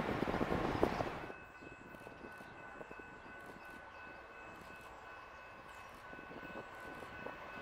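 Wind buffeting the microphone for about a second, then an abrupt drop to a quiet stretch with two steady high-pitched tones over a faint rumble. An approaching train grows slowly louder toward the end.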